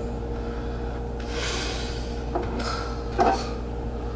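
Two daggers being drawn from leather sheaths: sliding scrapes about a second in and again near the end, with a brief louder sound near the end, over a steady faint hum.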